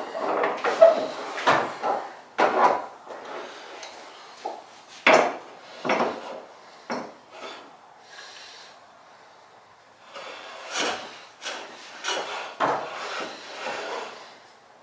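Wood River No. 7 jointer plane being pushed in short, uneven strokes over a block of wood, shaving it, with a quieter pause of a couple of seconds in the middle.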